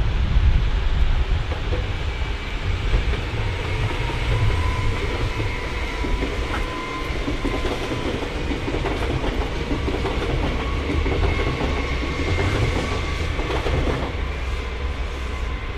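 A train rolling past, with steady rumble, wheels clicking over rail joints and a faint thin squeal held throughout, easing slightly toward the end.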